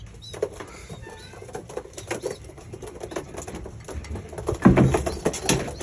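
Pigeons in a loft flapping and shuffling, with rustling wing flaps and scratchy clicks, and a few louder knocks and thuds near the end.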